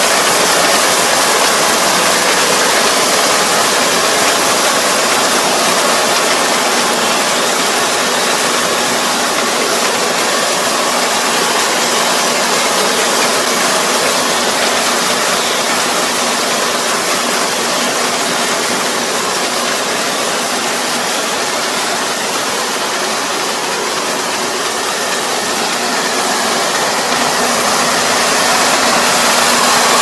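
Rice combine harvester running steadily under load, its engine and cutting and threshing works droning as it harvests partly flattened rice. The sound eases a little in the last third, then swells again near the end.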